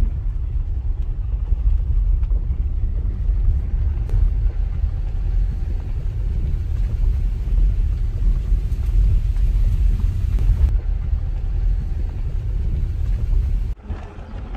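Car driving on a rural dirt road, heard from inside the cabin with a window down: a steady low rumble of road noise and wind buffeting. It drops off suddenly near the end.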